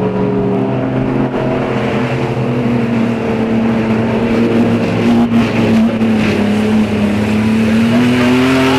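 Drag-racing truck engine running loud at high, fairly steady revs, its pitch dipping slightly and then climbing near the end.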